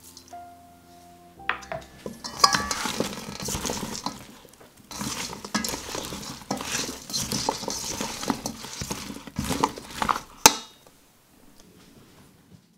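Metal tongs tossing chopped butternut squash, bell pepper and red onion in a stainless steel bowl: a busy clatter of vegetable pieces with the tongs clinking against the bowl. It starts about a second and a half in and ends with one sharp clink near the end.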